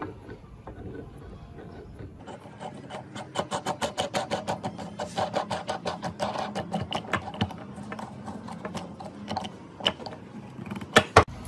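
Metal knob being spun along the breast drill's threaded steel bolt, its threads clicking rapidly and evenly with a light metallic ring. It is then twisted tight, with two loud sharp clicks near the end.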